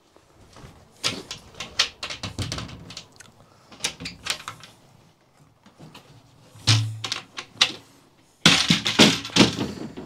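Metal hook latches clicking and a plywood access panel knocking against the house siding as it is unfastened and pulled off, with a heavy thump about two-thirds of the way in. A loud run of rapid knocks and scrapes follows near the end.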